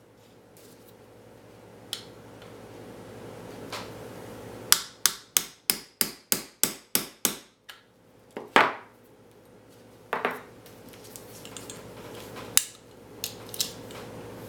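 Small hammer tapping pins into a High Standard R109 revolver's frame: a quick run of about nine light metallic taps, three or so a second, then a few single taps spaced a second or two apart.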